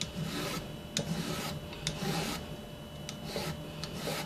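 Plastic hand-held julienne peeler scraping down a zucchini in repeated rasping strokes, its blade cutting thin strips, with small clicks between strokes.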